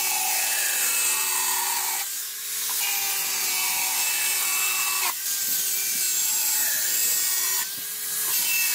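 Angle grinder with a tile-cutting disc slicing lengthwise along a PVC water pipe: a steady high whine over a grinding hiss, dipping briefly about two seconds in and again near the end.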